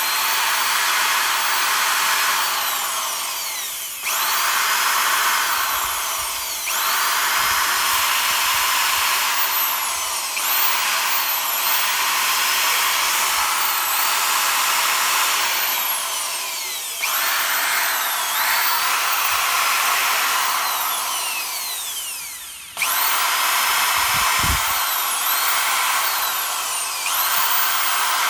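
Bosch corded drill's brushed motor running free on the trigger and released about five times, its pitch sliding down as it slows before it picks up speed again. The motor is being test run on newly fitted carbon brushes.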